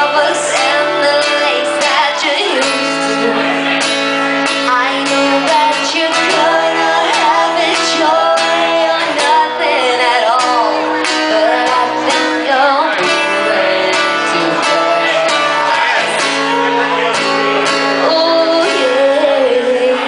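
A woman singing a gliding melody to acoustic guitar accompaniment, played live.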